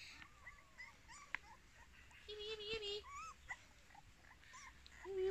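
Young puppies whimpering faintly: scattered short, high whines, with a longer held whine about two seconds in and another near the end that rises as it stops.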